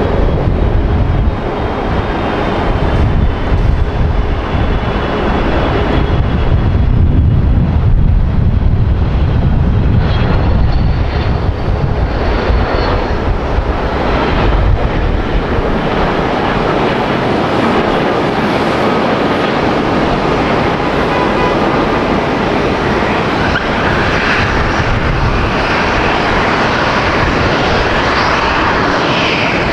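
Jet airliner engines running loud and continuous as an aircraft moves on or over the runway. The noise has a deep rumble for the first half, then shifts toward a higher hiss.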